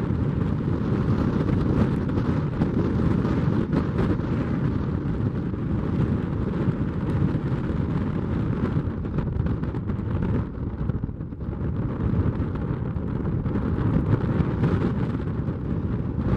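Steady, loud rumbling roar of the Airbus A220-100's jet engines (Pratt & Whitney PW1500G geared turbofans) as the airliner passes.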